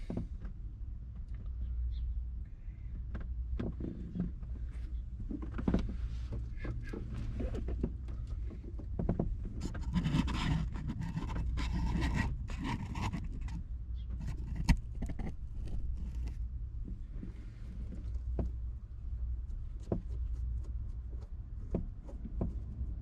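Scattered small clicks, knocks and scraping of a hydraulic handbrake and brake-line fittings being worked into place by hand, over a steady low hum.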